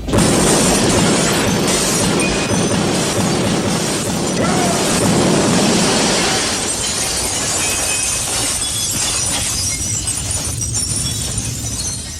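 A loud crash-and-shatter sound effect that starts suddenly and goes on as a steady noisy din before fading at the very end.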